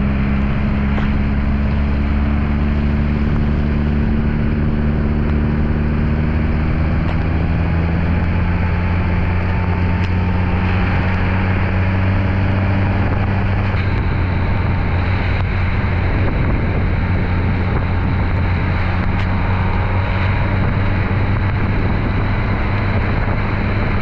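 1964 MG Midget's four-cylinder engine running steadily while driving, with road and wind noise. Its note eases down a little over the first several seconds, then holds steady, and a thin high whine comes in about halfway through.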